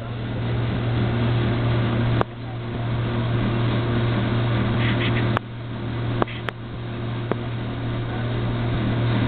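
A steady low mechanical hum with rushing noise, interrupted by a few sharp clicks, after some of which the sound briefly drops and then climbs back.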